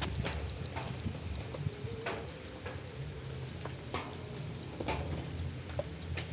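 A handmade micro crankbait's rattle being shaken, giving scattered, irregular small clicks over a steady low hum.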